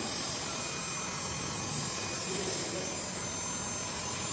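Electric heat gun running steadily, its fan blowing hot air into the end of a PVC pipe to soften it.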